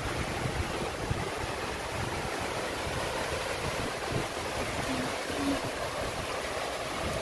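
Heavy rain pouring steadily, with gusty wind buffeting the microphone as a low, uneven rumble.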